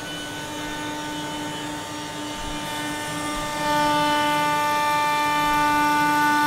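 NC wood router running with a steady whine of several fixed tones, growing louder about three and a half seconds in.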